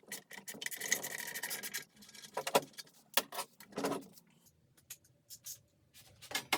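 Hand rubbing and scraping on a workpiece: fast, dense strokes for about two seconds, then a few separate scrapes and knocks with short pauses between them.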